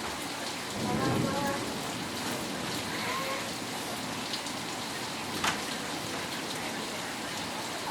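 Steady rain falling, an even hiss, with faint voices in the background about a second in.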